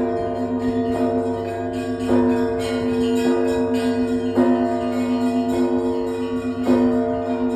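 Russian Orthodox bells of the Trinity-Sergius Lavra's main bell tower ringing together. Heavier strokes land about every one to two seconds over a quick steady pulse of smaller bells and long ringing tones.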